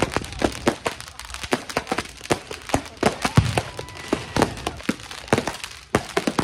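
Fireworks and firecrackers going off all around in a dense, irregular run of sharp cracks and pops, several a second, with one louder bang about three and a half seconds in.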